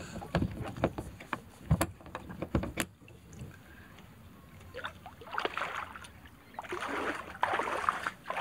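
Several sharp knocks against a kayak's hull during the first few seconds, then sloshing and splashing as someone climbs out and wades through shallow water beside it.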